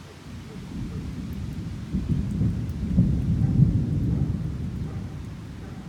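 Rolling thunder from a supercell thunderstorm: a deep rumble that builds about a second in, peaks midway and slowly fades, over a steady hiss.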